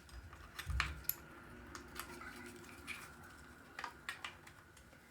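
Scattered light clicks and taps of small RC truck parts and tools being handled on a workbench, with a soft knock under a second in.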